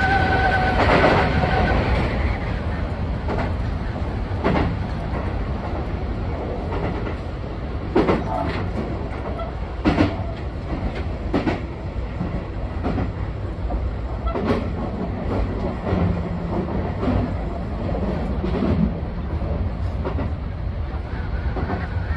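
Sotetsu 20000 series electric train running along the line, heard from the driver's cab: a steady low rumble with the clack of wheels over rail joints every one to three seconds. A steady high tone sounds in the first couple of seconds.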